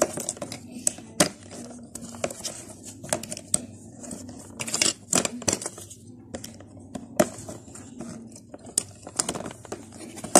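Hard plastic kit parts clicking and knocking together as they are snapped into place and handled on a tabletop: an irregular string of sharp clicks and taps, a few of them louder knocks.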